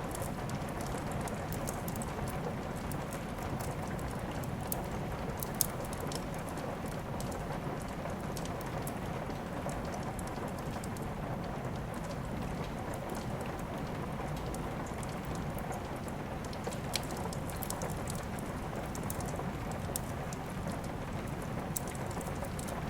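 Steady rain mixed with a crackling wood fire, with scattered sharp pops and a louder snap about five and a half seconds in.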